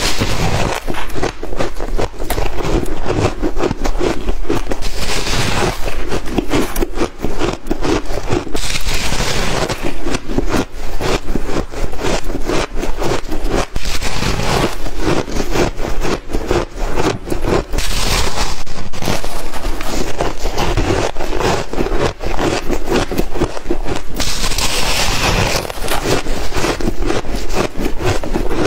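Frozen, compacted shaved ice being bitten and chewed close to the microphone: a dense, continuous run of crisp crunches and crackles.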